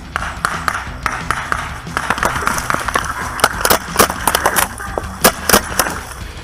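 Paintball markers firing, including the player's TR50 revolver-style marker: a quick run of sharp pops, about three a second, starting about three seconds in.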